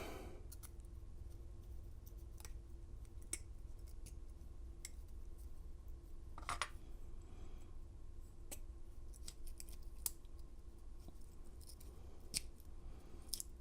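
Faint scattered metal clicks and ticks, with one short scrape about six and a half seconds in, as a shim is worked into an American 700 padlock to free its parts for disassembly. A low steady hum runs underneath.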